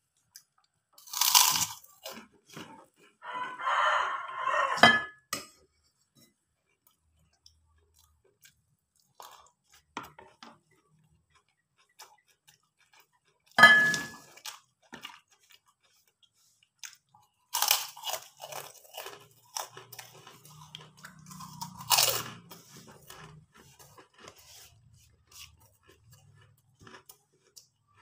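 A person biting and chewing a crisp fried cracker: several loud, sharp crunches come as the bites are taken, and quieter crackling chewing follows between them.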